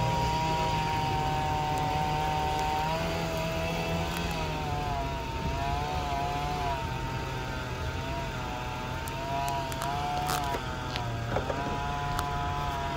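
An engine running steadily, its pitch dipping and wavering from about three seconds in as if under changing load, with a few sharp clicks near the end.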